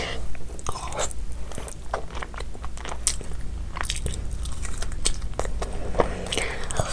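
A person biting into and chewing a fried chicken lollipop: repeated crisp crunches and short chewing clicks.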